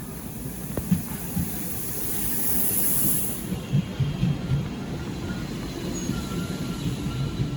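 Train moving through the station: a low rolling rumble with irregular clunks from the wheels and a short hiss about two to three seconds in. A faint thin squeal from the wheels comes in the second half.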